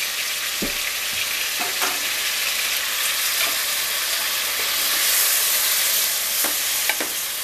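Strips of seasoned beef sizzling steadily in a square nonstick frying pan while a slotted spatula stirs them, with a few light knocks and scrapes of the spatula against the pan.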